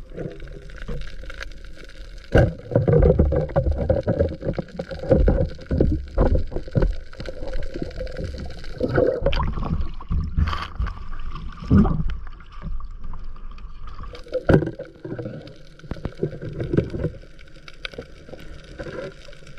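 Water sloshing and gurgling against an underwater camera, heard muffled as it moves, in uneven surges with scattered sharp knocks.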